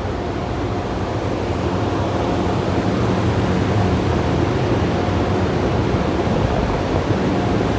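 A steady hum and rushing noise of a PATH subway train standing at an underground platform, a little louder from about two seconds in.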